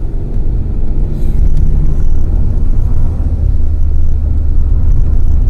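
Car engine and road noise heard from inside the moving car's cabin: a steady low rumble.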